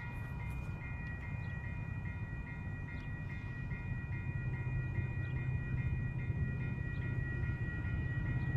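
Railroad grade-crossing warning bell ringing at a steady, rapid rhythm while the crossing signals are activated for an approaching train, over a low rumble that grows louder about halfway through.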